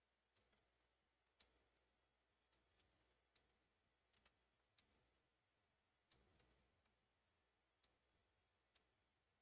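Near silence, broken by faint, scattered clicks at irregular intervals.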